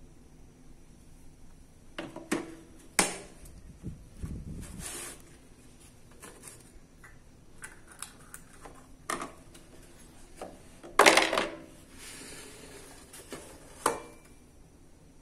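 Bosch 103-piece drill and screwdriver bit set being handled in its hard plastic case: scattered clicks and knocks of metal bits against the plastic, then a louder clatter as the lid is shut about eleven seconds in, and a sharp click near the end.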